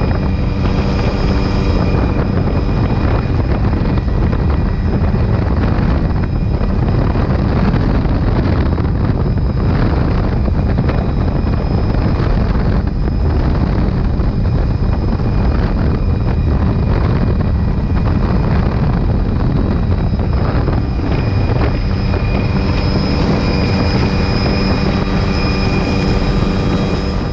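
Helicopter in flight heard from inside the cabin with the doors off: the steady drone of the rotor and turbine mixed with rushing wind on the microphone.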